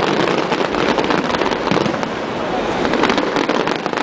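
Aerial fireworks bursting overhead: a continuous rapid run of pops and bangs from many shells going off at once.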